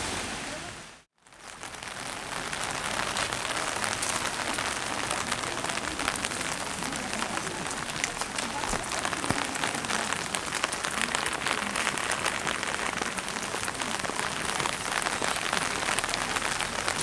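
Steady rain falling, with many small drop hits. The sound cuts out for a moment about a second in, then the rain carries on evenly.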